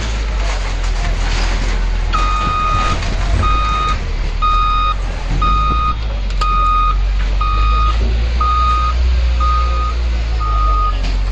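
Diesel engine of a CAT wheel loader running under load, with its reversing alarm sounding from about two seconds in: a steady series of single-pitch beeps, about one a second.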